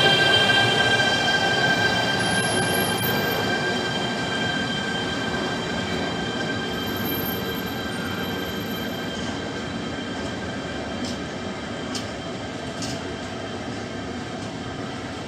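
Electric freight train of curtain-sided coil wagons rolling past at close range, with steady rumbling wheel noise and a high whine that fades over the first few seconds as the locomotive pulls away. The sound grows gradually quieter, with a few sharp clicks near the end.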